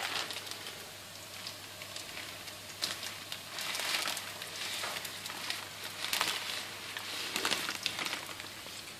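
Pot of water at a rolling boil on a gas burner: a soft, uneven bubbling hiss with small crackles, swelling and easing every second or two.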